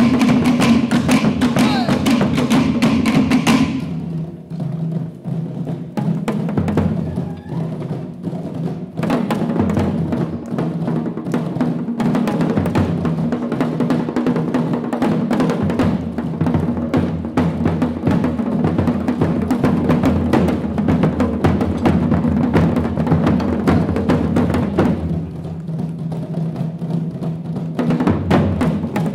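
Tahitian drum ensemble playing fast interlocking rhythms: to'ere slit log drums clattering rapid strokes over deep pahu bass drums. About four seconds in the playing drops to a sparser, lower passage, then builds back to full ensemble around nine seconds; it thins briefly once more near the end.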